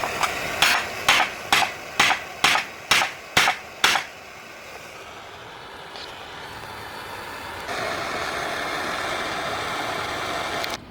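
Hammer striking steel about eight times, roughly two blows a second, each with a short metallic ring: setting the rivet that joins the two halves of hand-forged tongs. A steady rushing noise runs under the blows, fades after them and comes back near the end.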